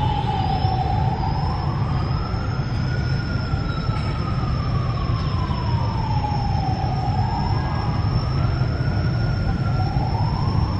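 A siren wailing slowly up and down, each fall and rise taking a few seconds, over a steady low rumble and a thin, steady high whine.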